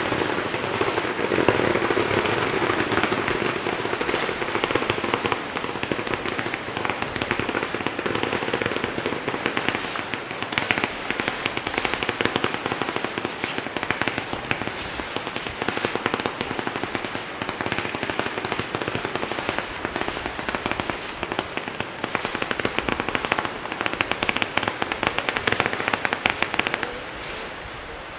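Fireworks crackling: a dense, continuous rattle of many small pops, dropping away about a second before the end.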